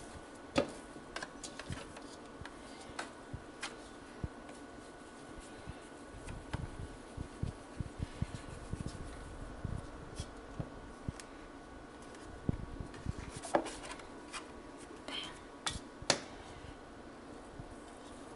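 Hands working soft cookie dough: scraping and scooping it out of a plastic mixing bowl and setting pieces on a baking sheet, heard as scattered soft rustles and taps with a few sharper knocks. A faint steady hum runs underneath.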